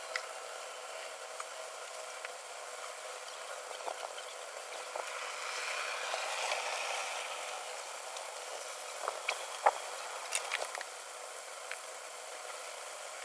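Steady background hiss that swells for a couple of seconds midway, with a few sharp clicks near the end.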